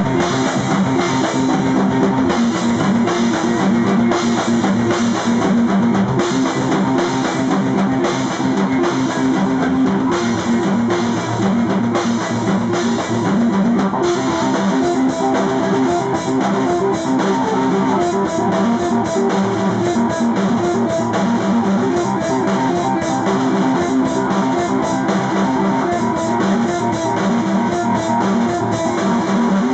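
Live rock band playing loud, with guitar and a drum kit, heard from among the audience.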